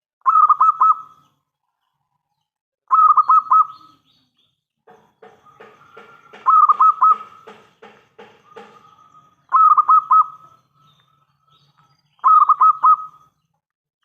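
Zebra dove (local perkutut) cooing: five loud phrases of quick rolling notes, one about every three seconds, with a fainter rapid run of notes in the middle.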